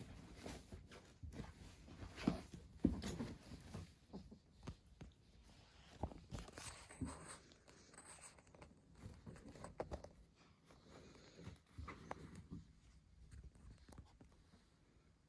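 Nylon fabric of a pop-up cat tent rustling and crinkling as a cat pushes into it and tussles at its opening, with soft knocks of paws and body against it and the carpet. The sounds are irregular and come in small clusters, loudest about two to three seconds in.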